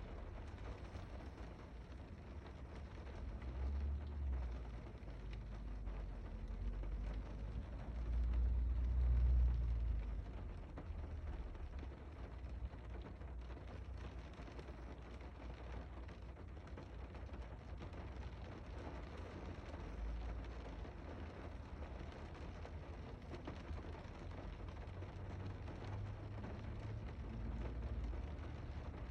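Steady rain falling, with a deep low rumble underneath that swells and fades several times, loudest about eight to ten seconds in.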